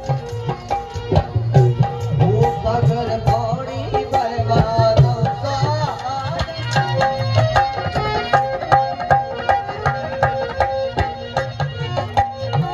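Live Rajasthani folk music: a hand drum keeps a steady beat under a sustained melody line.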